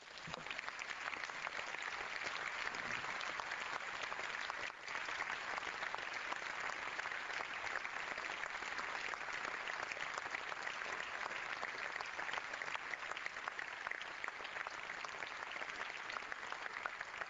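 Sustained applause from the deputies in a parliamentary chamber, many hands clapping at once; it comes up to full strength straight away and holds steady.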